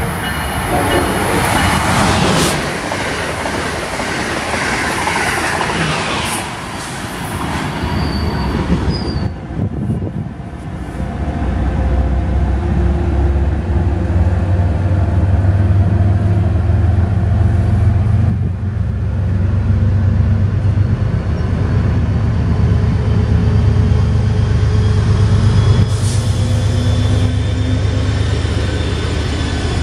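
An Amtrak Acela high-speed electric train rushes past at speed for the first several seconds. Then an MBTA commuter train of bilevel coaches rolls by, under the deep, steady rumble of its diesel locomotive, which grows louder toward the end as the locomotive draws near.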